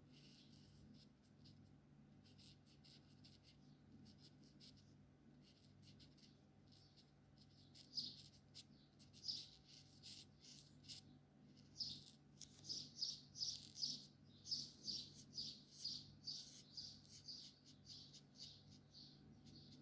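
Alcohol marker tip rubbing on paper in short colouring strokes: faint at first, then a run of quick strokes from about eight seconds in.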